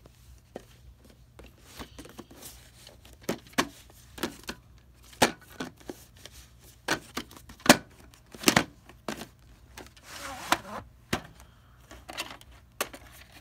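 A VHS cassette and its cardboard sleeve being handled: irregular plastic clicks and knocks, with a stretch of rustling about ten seconds in.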